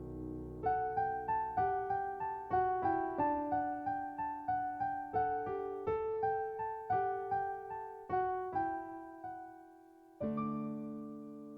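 Background music on a keyboard: a melody of single struck piano notes, each dying away, a few notes a second, then a held chord about ten seconds in.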